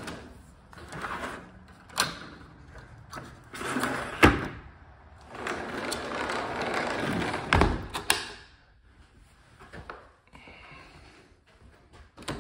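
Sliding patio door rolling along its track several times, with sharp clicks and knocks from the handle latch and the door meeting the frame. The heaviest knock comes about two-thirds of the way in.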